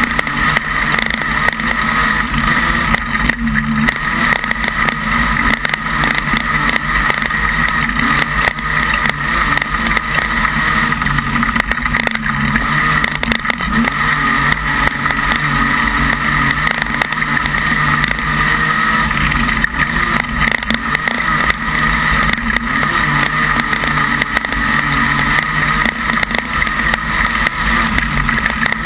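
Modified production speedway car's engine running hard at racing speed, heard from inside the car as a loud, steady drone, with frequent short knocks and rattles.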